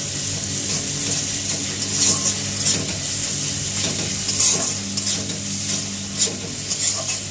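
A metal spatula stirs and scrapes a frying masala with green peas around an aluminium kadai, with irregular scrapes and clinks against the pan over a steady sizzle of the spice paste frying in oil.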